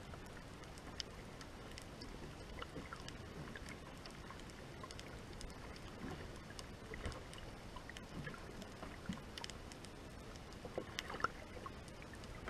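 Underwater ambience heard through a submerged camera's housing: a steady faint hiss with scattered small clicks and pops, and one sharper click near the end.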